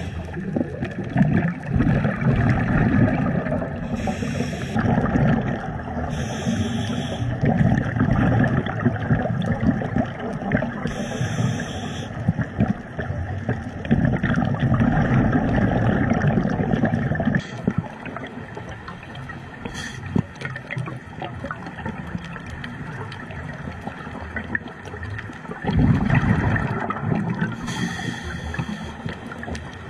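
Underwater scuba breathing through a regulator: a steady gurgle and rumble of exhaled bubbles, with a short hiss of inhalation every few seconds.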